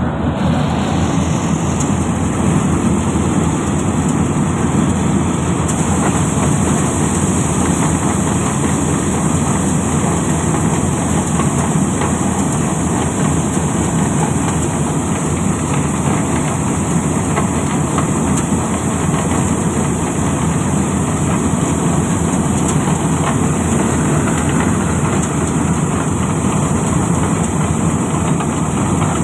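Dasmesh combine harvester running steadily at working speed, its engine and threshing machinery giving a loud, even mechanical din while the unloading auger pours grain into a trailer.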